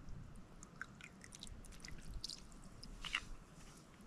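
Faint handling sounds of a small metal cup and a plastic water bottle while creek water is collected: scattered small clicks and crackles, with a short cluster about three seconds in.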